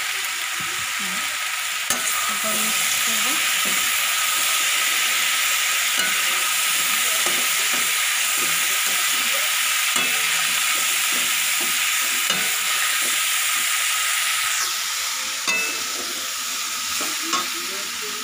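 Potato and vegetable pieces sizzling in hot oil in a metal kadai while a metal spatula stirs them, being fried down with spices. The spatula clicks against the pan every few seconds. The sizzle eases slightly near the end.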